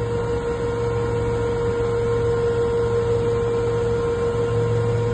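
Cabin noise of a Westland Lynx Mk7 helicopter in flight: its twin turboshaft engines and rotor transmission give a constant hum with a steady whine over it.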